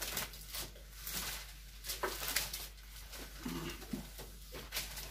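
Felt-tip marker writing on flipchart paper: short, irregular scratchy squeaks of the pen strokes.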